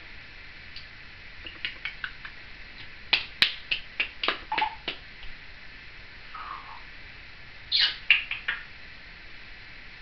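Timneh African grey parrot making short sharp clicks and squeaky chirps in quick runs: a string of them from about a second and a half in, and another short burst near eight seconds.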